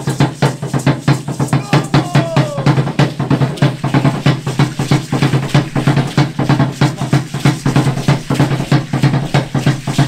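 Drum playing a steady, fast beat, about four strikes a second, as the accompaniment for an Aztec-style Concheros dance, with a brief falling tone about two seconds in.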